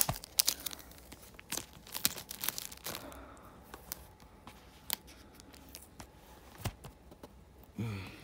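Fingernails scratching and picking at a sticker and its residue on a plastic DVD case, with crinkly clicks and scrapes. These come thick for about three seconds and then only now and then. A sharp plastic snap right at the start is the loudest, and there is a brief voice sound just before the end.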